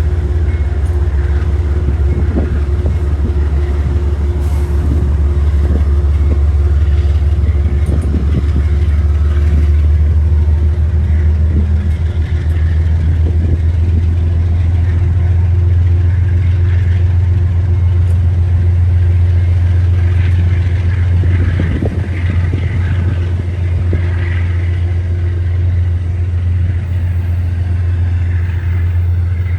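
A train's diesel engine running steadily, a loud low drone with a faint higher hum above it.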